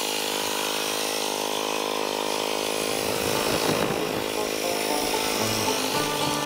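Cub Cadet 149 garden tractor's single-cylinder Kohler engine running steadily as the tractor drives, its pitch wavering briefly about halfway through.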